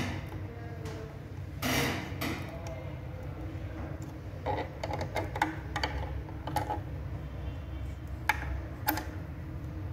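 Multimeter probe tips clicking and scraping on the IGBT module terminals of a solar inverter during a continuity test, in scattered taps with two sharp clicks near the end, over a steady low hum. No continuity beep sounds: the IGBTs are not shorted.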